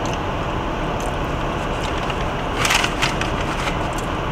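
Steady background noise inside a car cabin, with a short burst of crackling about two and a half seconds in from fast food being handled and eaten.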